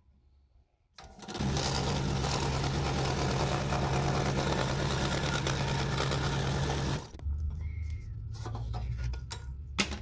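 Scroll saw starting up about a second in, then running steadily with a fast reciprocating blade chatter as it cuts a small disc out of a thin sheet; about seven seconds in the sound drops and goes on quieter and rougher.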